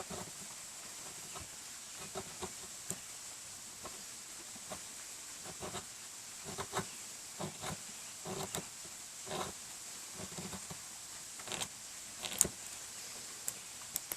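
Swiss Army knife blade shaving fatwood: short, irregular scraping strokes, one sharp click a little after twelve seconds in, over the steady hiss of a creek.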